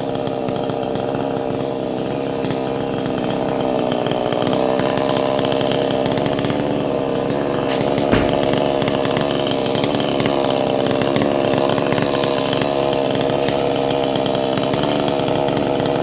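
Two-stroke petrol chainsaw running steadily at high revs while cutting a coconut tree trunk, with one sharp knock about halfway through.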